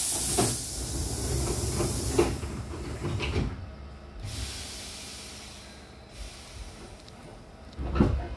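Hankyu train's pneumatic double sliding doors closing: a sudden burst of air hiss, then the doors rolling shut with clunks about two and three seconds in. A second hiss of air being let out starts about four seconds in, and a sharp thump comes near the end.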